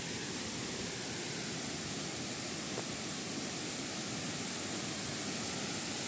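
Steady rushing of the Skoka waterfall, water pouring down a rock face.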